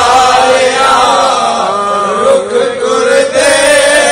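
A man's voice chanting in a drawn-out, melodic recitation style. Long held notes waver and glide up and down.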